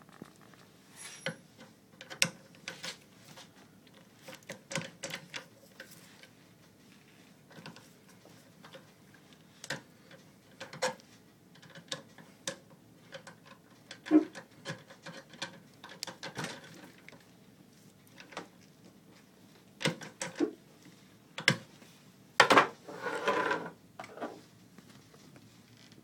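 Large screwdriver jammed in the keyway of a Cyberlock puck-lock cylinder held in a steel bench vise, being twisted and levered to force the cylinder round: scattered metal clicks, knocks and short scrapes, with a longer, louder scrape near the end.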